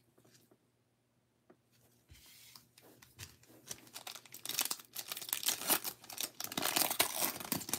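A baseball card pack's wrapper being torn open and crinkled by gloved hands. A dense run of crackling starts about four seconds in, after a nearly silent start.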